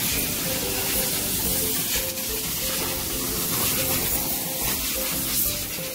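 Steady hiss from self-service car wash equipment, with background music playing a melody over it.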